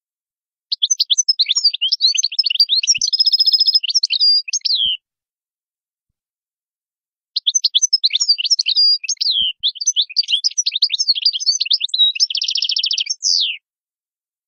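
European goldfinch singing two long twittering song phrases, each a fast run of varied chirps that ends in a buzzy trill, with a pause of about two seconds between them.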